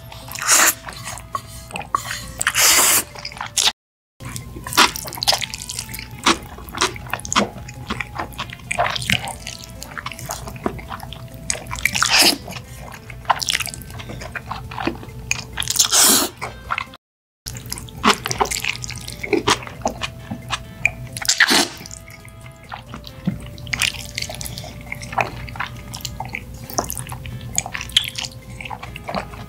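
Close-miked wet slurping and chewing of black bean noodles (jjajangmyeon), with several long loud slurps among quick smacking and chewing sounds. Faint music with a simple melody plays underneath, and the sound cuts out briefly twice.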